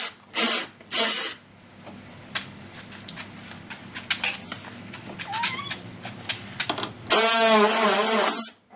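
Power drill/driver spinning in two short bursts, then small clicks and rattles of tools and plastic, then the drill running again for about a second and a half near the end with a whine that wavers in pitch.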